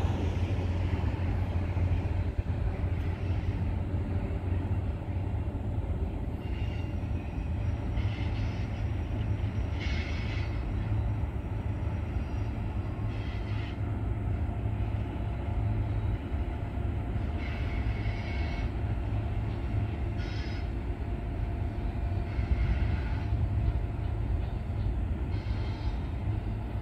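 Freight train cars rolling past: a steady low rumble, with brief higher-pitched rattles every second or two.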